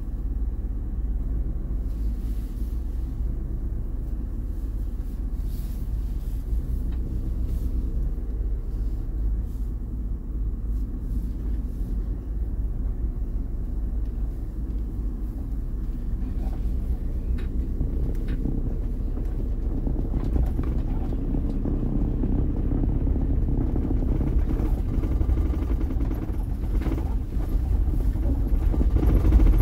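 Low steady rumble of a camper van's engine and tyres, heard from inside the cab as it drives slowly up the stern ramp and onto a ferry's vehicle deck. The rumble grows a little louder in the last third, with a few faint clicks about halfway.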